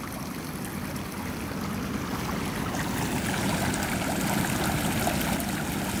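Creek water flowing steadily, an even rushing that grows gradually a little louder.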